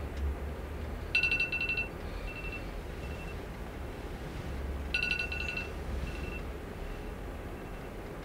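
Wake-up alarm beeping: two short bursts of rapid high beeps, about four seconds apart, each trailing off in a few fainter tones.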